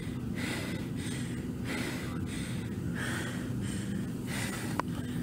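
A person breathing hard and fast close to the microphone, a loud breath about every half second to second: the wearer winded after exertion and smoke.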